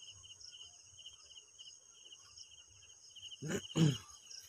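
Insects chirring in a steady, pulsing chorus at several high pitches. A man's voice cuts in with two short syllables about three and a half seconds in.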